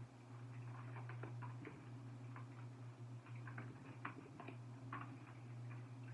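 Oracle cards being shuffled and handled: scattered light taps and flicks, uneven in timing, over a steady low hum.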